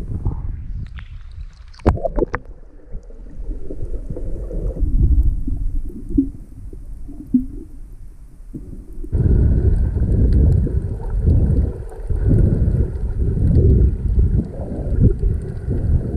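Muffled water sloshing and rumbling against a camera held at and below the sea surface while snorkeling, with a few sharp splashes about two seconds in. The rumble turns louder and fuller about nine seconds in.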